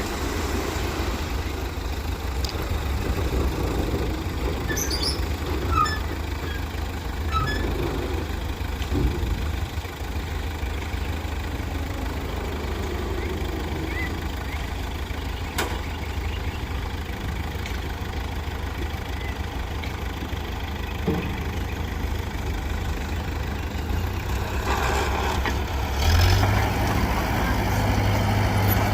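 Heavy diesel earthmoving machinery, a bulldozer with a dump truck working nearby, running steadily with a low rumble. The engine note grows louder and heavier about 26 seconds in, as the machine works harder.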